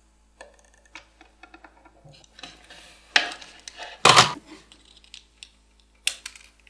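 Small tools being handled on a wooden workbench: light clicks and clinks, with two louder clatters about three and four seconds in. Near the end come a few sharp snips of side cutters clipping a component's wire legs on the circuit board.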